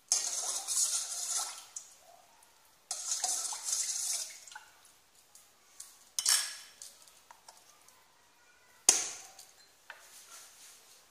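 Steel spoon stirring water in a stainless steel pot, swishing the water and clinking against the pot in four bursts, the last two starting with a sharp clink. The salt and asafoetida just added are being stirred in.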